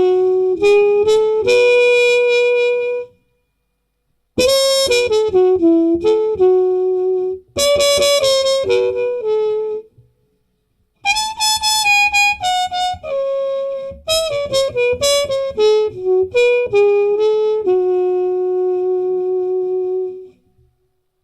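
A solo reed instrument plays a melody in several phrases, with brief pauses between them.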